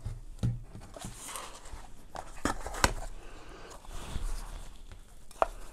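Handling noise from a metal FIFINE USB microphone and its USB cable being moved about on a desk: light rustling with a few sharp clicks and knocks, the loudest about two and a half seconds in, just under three seconds in, and near the end.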